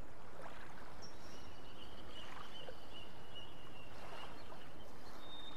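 Steady outdoor ambience: an even wash of water and wind noise, with a few faint, thin high tones in the middle.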